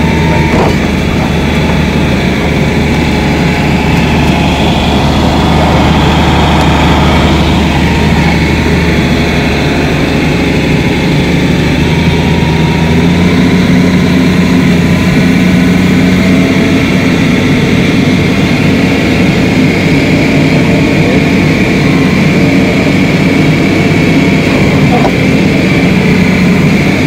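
Tracked excavator's diesel engine running loud and close, its steady note stepping up in pitch about halfway through.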